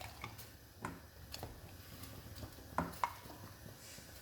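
A kitchen utensil clinking and knocking lightly against a glass jar as it is filled with boiled corn kernels: a few scattered clinks, the clearest a little before three seconds in.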